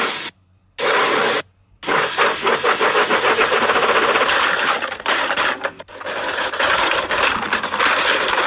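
Casey Jr. cartoon steam engine chugging sound effect: two short bursts of steam exhaust, then a continuous run of fast, hissing chuffs.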